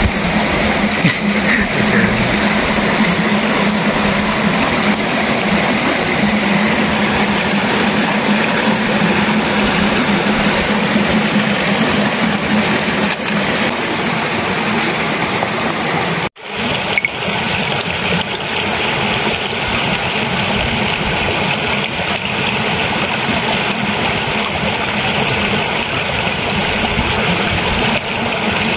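Steady rushing of a rocky mountain stream, a loud even wash of water noise. It cuts out for a moment about sixteen seconds in and then carries on.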